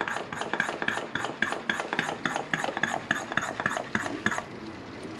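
A hand vacuum brake-bleeding pump drawing fluid through the open bleed nipple of a motorcycle's rear brake caliper: rapid, regular squeaky sputters, about four a second, that stop near the end. A few air bubbles are still coming through with the fluid.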